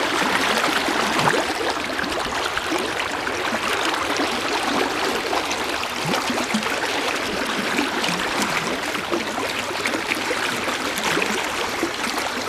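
River water rushing steadily: a fast, swollen river in high spring water.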